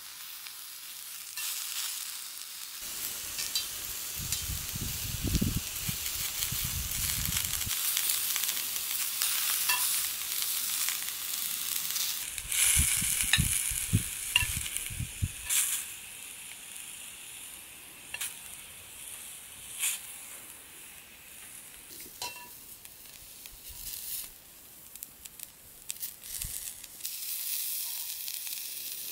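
Vegetables sizzling in a cast-iron skillet over a charcoal shichirin, with scattered clicks of metal tongs against the pan as pieces are turned and lifted out. Gusts of wind rumble on the microphone twice, near the start and about halfway through.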